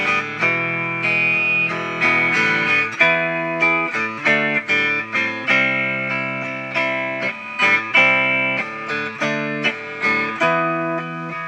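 Instrumental break of a song: guitar playing a run of plucked notes and chords.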